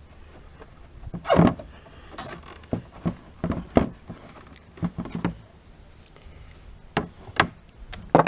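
Irregular clicks and knocks of hands working a nylon zip tie through drilled holes in a four-wheeler's cracked plastic panel and pulling it snug. There are about eight separate sharp clicks, the loudest about a second and a half in.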